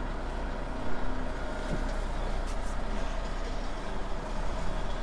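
Heavy truck's diesel engine running at low revs while the lorry reverses slowly, a steady low hum heard from inside the cab, with a single light knock about a second in.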